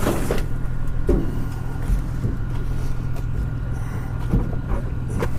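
Vehicle engine idling with a steady low hum, with a few short knocks and clatters scattered through it.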